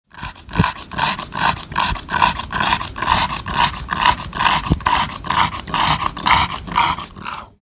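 English bulldog panting hard and fast, about three breaths a second.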